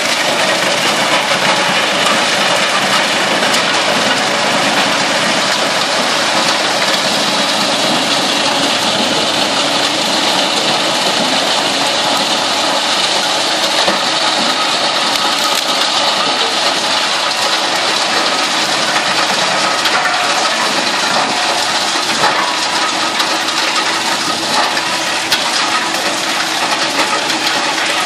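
Heizohack HM 6-300 wood chipper running steadily together with its tractor engine, chewing up brush fed in by a crane grapple, with a dense clatter of small cracks from snapping branches and twigs.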